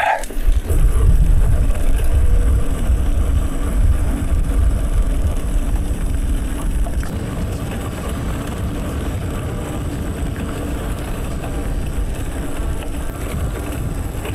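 Wind rumbling on the microphone, with tyre noise, while a bicycle is ridden along a trail; a little louder in the first few seconds, then easing slightly.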